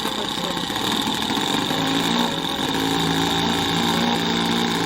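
Small OS 26 four-stroke model airplane engine running, its note growing stronger and rising slightly about two seconds in.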